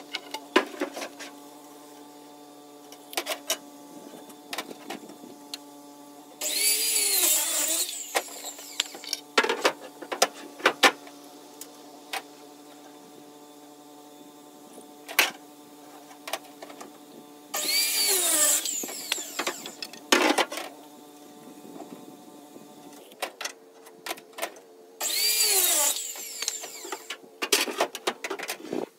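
Electric power saw cutting through wooden boards three times, each cut lasting about a second and a half as the blade spins up, bites and winds down. Between the cuts come sharp knocks of lumber being handled and dropped.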